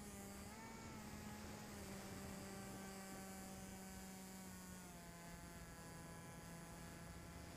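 Electric motor and propeller of a small foam RC plane, heard through the onboard camera as a steady hum that shifts slightly in pitch and drops a little about five seconds in.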